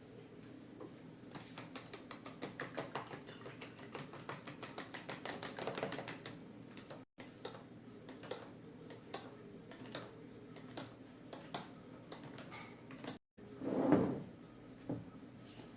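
A quick run of light clicks, about eight to ten a second, then scattered clicks and one louder clatter near the end: kitchen utensil or dish handling.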